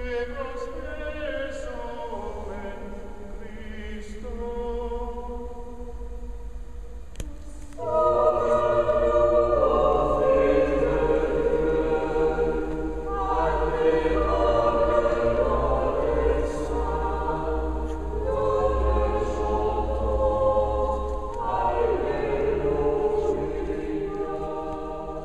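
Choir singing Byzantine liturgical chant a cappella, sustained held notes in several voices. It is quieter at first, becomes fuller and louder about eight seconds in, and fades near the end.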